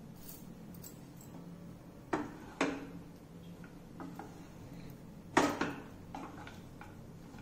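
Spatula stirring poha in a non-stick kadhai, knocking against the pan a few times: two sharp knocks about two seconds in and the loudest about five and a half seconds in, with lighter clicks between and after.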